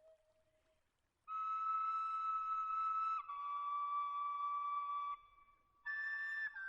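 Flute music: long held notes in a slow melody. It comes in about a second in after a brief hush, steps down in pitch, and breaks off briefly before a higher note near the end.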